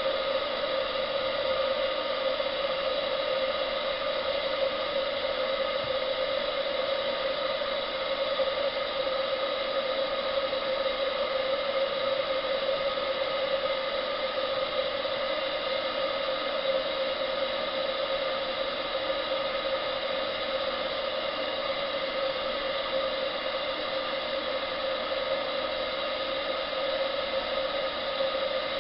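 28mm solid-brass butane boiler burner firing a model steam boiler: a steady, unbroken gas-flame hiss with a strong droning tone running through it.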